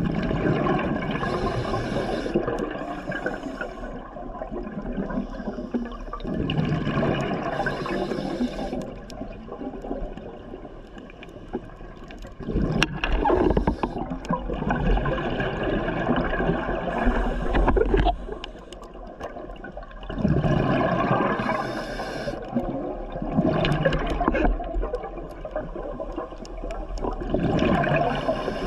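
Scuba diver's regulator breathing, heard underwater through the camera housing: a hiss on each inhale and a gurgling rush of exhaled bubbles, repeating about every six to seven seconds.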